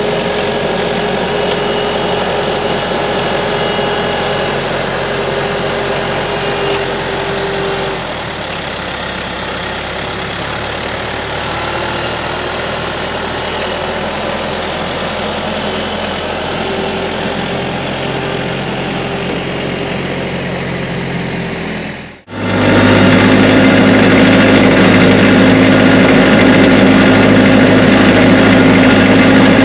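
TYM T494 tractor's diesel engine running while its front loader works, the note dropping slightly about eight seconds in. After a brief break about two-thirds of the way through, the engine is much louder and closer, running steadily.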